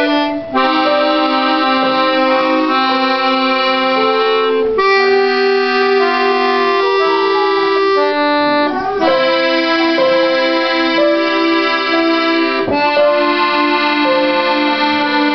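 A group of button accordions playing a tune together: a melody line over held notes, pausing briefly between phrases.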